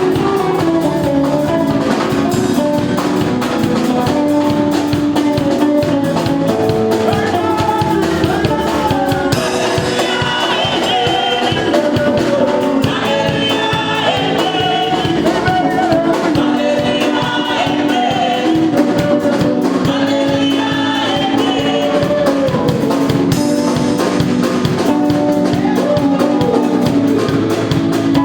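A live band playing a gospel song, with singing over drum kit and instruments.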